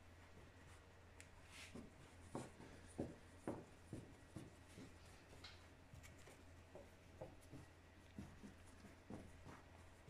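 Faint, irregular rustling and soft taps of hands stretching thin strudel dough across a floured cloth, over a steady low hum.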